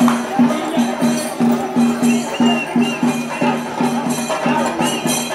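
Festival music with a steady pulsing beat, about three beats a second.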